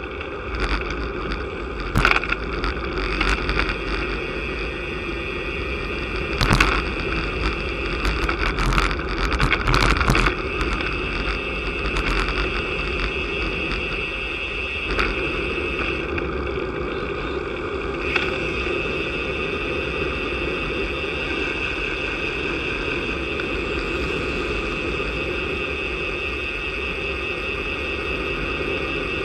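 Wind rushing over the microphone and tyre and road noise from a road bicycle riding along a paved road, steady throughout, with a few sharp knocks in the first ten seconds.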